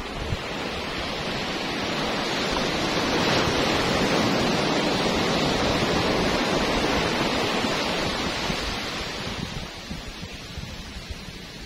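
Small sea waves breaking and washing up a beach, the surf swelling over the first few seconds and dying away toward the end.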